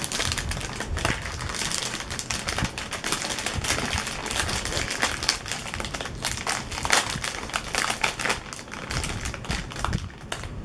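Foil potato-chip bag crinkling and crackling as it is pulled and worked open by hand, a dense, continuous run of small crackles.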